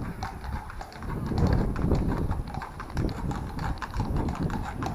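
Horse hooves clip-clopping on a paved village road: quick, irregular hoof strikes several times a second, over a low rumble.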